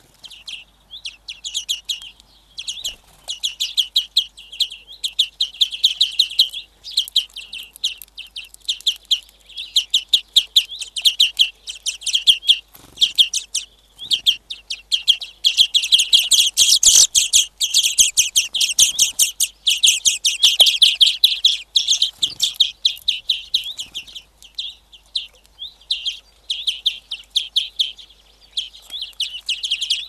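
Small songbirds twittering in a rapid, continuous chatter of high chirps, loudest in the middle and with a few brief pauses.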